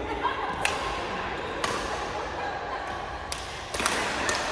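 Badminton rally: sharp cracks of rackets hitting the shuttlecock, roughly once a second and closer together near the end, over the steady background of a sports hall.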